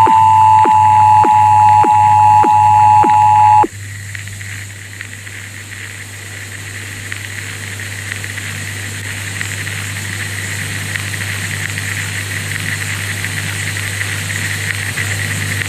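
Emergency Broadcast System attention signal: a loud steady alarm tone with a regular soft click under it, cutting off abruptly about three and a half seconds in. For the rest, a steady hiss of static with a low hum takes over and slowly grows louder.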